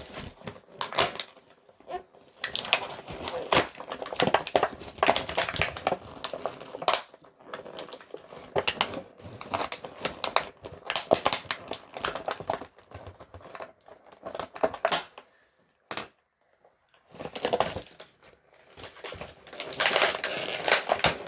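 Plastic toy packaging crinkling and crackling as small pieces are worked free of it by hand, in irregular handling noise with a short lull about three-quarters of the way through.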